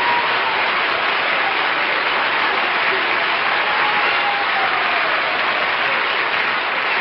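Studio audience applauding, steady and unbroken.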